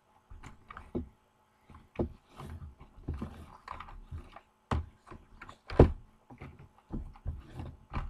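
Handling noise from packaged toy cars being shuffled through: irregular clicks, knocks and rustling of plastic and card, with one sharp knock just before six seconds in.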